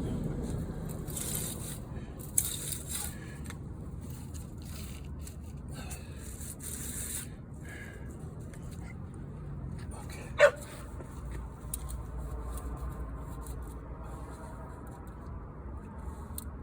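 Scratchy rubbing and scraping sounds over the first several seconds, then a single short dog yelp, falling in pitch, about ten seconds in, over a low steady hum.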